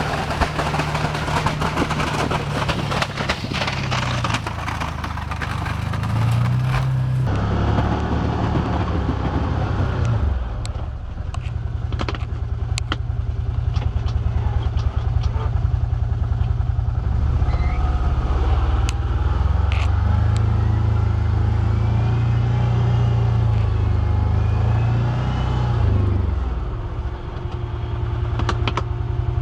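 Can-Am Commander 1000 XT side-by-side's Rotax V-twin engine running under plowing load, revving up and easing off several times as it pushes snow. A rushing hiss lies over it for the first several seconds.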